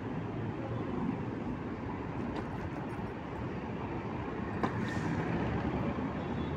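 Steady low rumble of road traffic and wind rush heard from a moving scooter in city traffic, with a single short click about four and a half seconds in.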